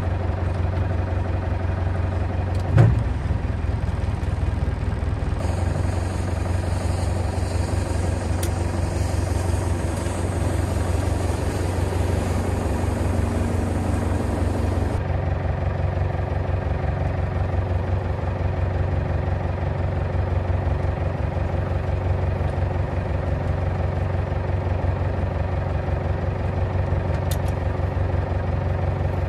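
A fishing boat's engine running steadily with a low, even drone, with one sharp knock about three seconds in.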